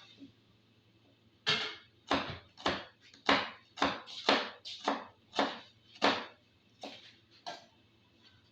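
Kitchen knife slicing an onion on a cutting board: about eleven sharp chops at roughly two a second, starting about one and a half seconds in and growing fainter near the end.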